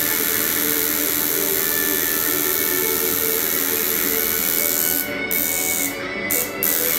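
Coil tattoo machine buzzing steadily as it works, cutting out briefly a few times near the end.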